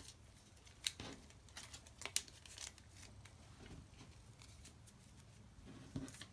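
Photocards being handled: faint rustles and light clicks as cards are shuffled through and picked up off a table, with a few sharper taps about one and two seconds in.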